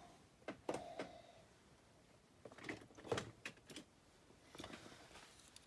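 Faint handling noise of small objects being picked up and moved: scattered light clicks and rustles, with a small cluster a little before the middle.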